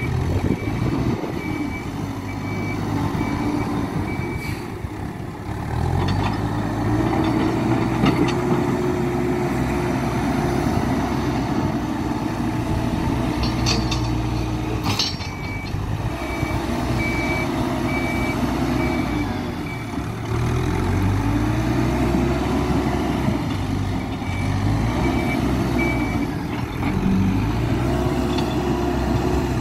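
Hidromek 102B backhoe loader's diesel engine working under load, revving up and settling again in repeated surges, with a reversing alarm beeping in three stretches: near the start, after about halfway, and near the end. Two sharp metallic knocks come about halfway through.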